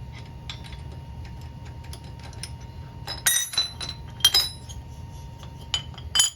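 Metal tools and clamping hardware clinking on a milling machine table, likely as the Harley cylinder is unbolted: a few sharp ringing strikes a little past three seconds, just past four seconds and near the end, with lighter ticks between, over a steady low hum.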